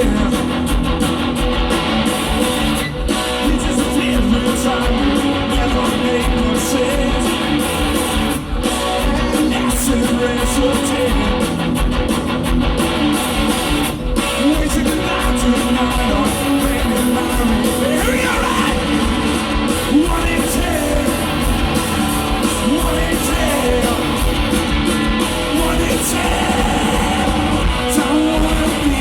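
Rock band playing live, loud and continuous, with electric guitars and singing.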